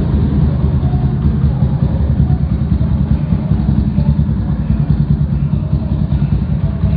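Yamaha Raptor 250 ATV's single-cylinder four-stroke engine idling steadily, a loud, even low-pitched putter.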